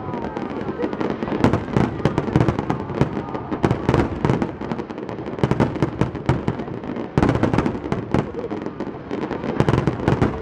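Fireworks finale: a dense, continuous barrage of aerial shells bursting, deep booms mixed with rapid crackling, with a heavier surge of bursts about seven seconds in.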